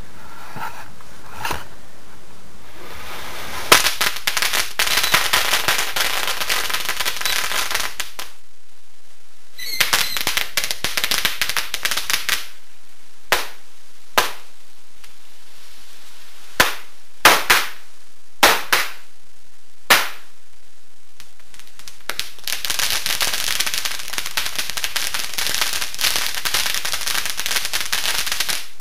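Firecrackers going off on a toy stagecoach. There are a few seconds of dense, rapid crackling, then a shorter burst, then single sharp bangs roughly one a second, and finally a long stretch of dense crackling.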